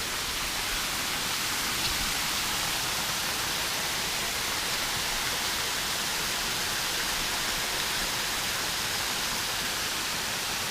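Steady rush of falling water from a stream or small waterfall, an even hiss with no change throughout.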